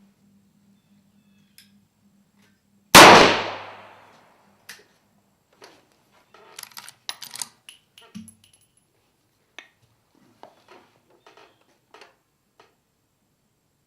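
A single rifle shot about three seconds in, with a short ringing tail, followed by a scattering of light metallic clicks and clinks.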